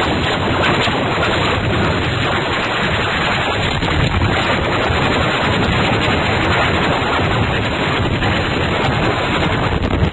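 Loud, harsh, steady noise effect full of dense crackling, like distorted static.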